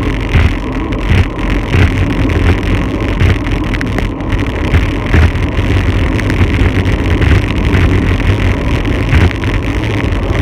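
Loud wind rushing and buffeting over the microphone of a camera on a bike speeding down a wet mountain road, with heavy irregular low rumbling throughout.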